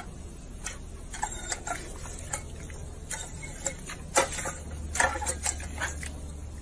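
Irregular clicks and splashes: a German shepherd working the paw pedal of a step-on dog water fountain and snapping at the spurts of water, with the loudest snaps about four and five seconds in.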